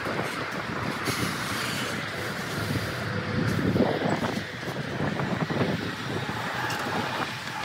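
Dodge Ram 5500 truck towing an empty steel car-hauler trailer past at low speed: engine running and tyres rolling, with a few knocks from the trailer about halfway through.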